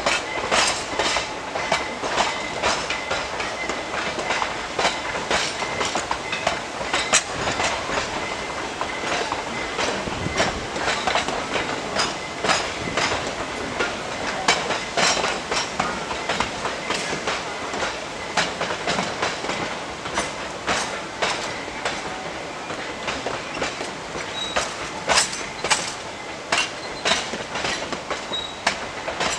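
Narrow-gauge passenger cars rolling past at low speed, their wheels clicking and clanking irregularly over the rail joints.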